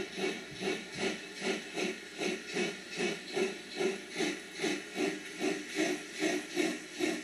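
Steam locomotive chuffing at a steady, even beat of about two and a half chuffs a second, each chuff a short hiss.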